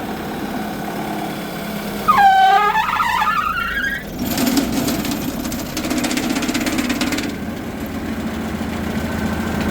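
Vermeer BC1000XL wood chipper's diesel engine idling as the clutch is engaged. About two seconds in, a loud squeal dips and then climbs in pitch as the cutter drum spins up, followed by a steady rushing noise for a few seconds before the engine hum settles again.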